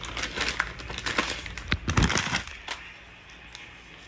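Rapid clicks, knocks and clatter of small hard objects being handled. Dense for the first two and a half seconds, with the loudest knocks about two seconds in, then dying down to a few faint ticks.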